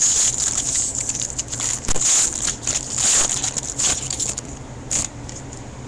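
A baseball card pack's wrapper being torn open and crinkled, a dense crackling rustle that stops about five seconds in.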